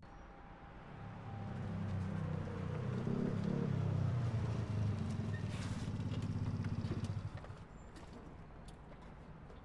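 Motorcycle engine running with a steady low pulse, building up and then cutting down sharply about seven seconds in, leaving fainter background noise.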